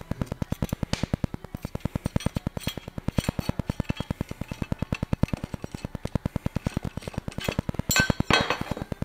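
Metal parts and fasteners clinking as they are handled on a workbench, loudest just before the end. Under them runs a steady, rapid low pulse of about seven thumps a second.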